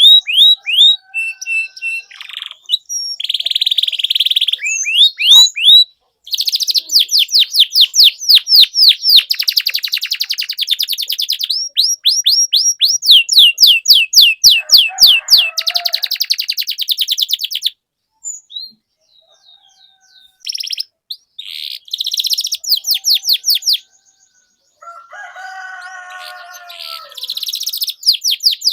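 Domestic canary singing loud, long trills of fast repeated high notes, each note sweeping downward, broken by short pauses. A lower-pitched warbling phrase comes in near the end.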